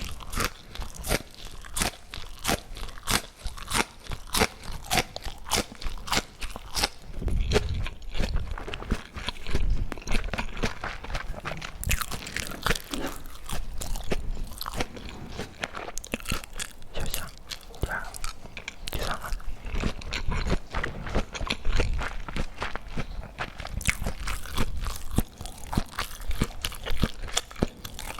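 Close-miked eating: repeated crunchy bites and chewing of food, irregular and continuous.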